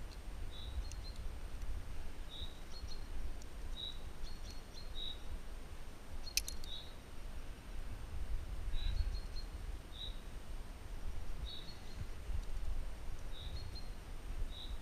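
A bird chirping repeatedly, one short high note about once a second, sometimes with a quick lighter note just before it. Under it runs a low rumble on the microphone, and there is one sharp click about six seconds in.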